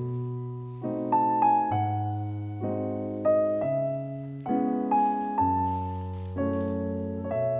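Background piano music: gentle chords and melody notes, a new one struck about once a second, each fading out before the next.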